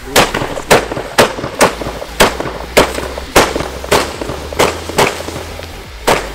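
Firecrackers going off one after another in a ragged series of sharp bangs, roughly two a second.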